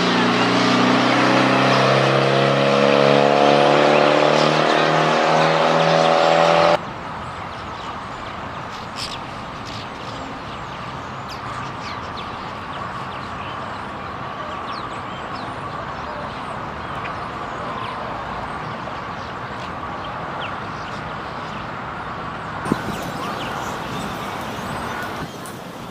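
A vehicle engine accelerating, its pitch rising steadily, cut off abruptly about seven seconds in. After the cut comes quieter steady background noise with many short high chirps from a large flock of purple martins gathering at their roost.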